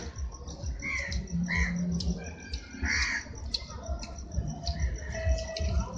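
Busy railway platform ambience: a low rumble and crowd hubbub with a faint steady high ticking. Three loud, harsh, short calls stand out, about one second in, half a second later, and again around three seconds.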